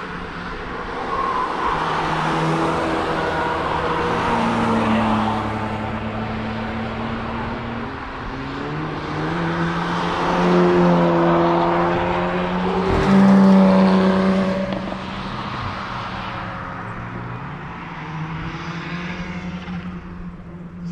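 Cars driving past one after another at speed, their engines revving hard and then fading, with the passes overlapping. The loudest pass comes about two-thirds of the way through, its engine note sliding down in pitch as it goes by.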